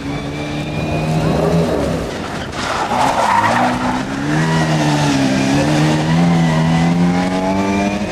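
Small hatchback rally car's engine running at high revs, its pitch dipping and rising as the car is thrown through tight turns. Tyres squeal and skid on the tarmac, loudest about three seconds in.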